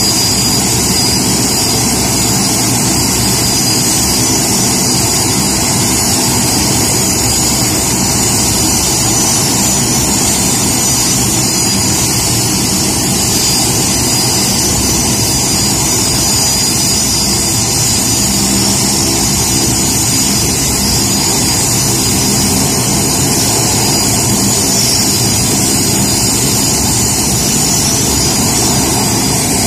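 BAE Hawk jet's turbofan engine running steadily: a constant high whine over a low rumble, without rising or falling.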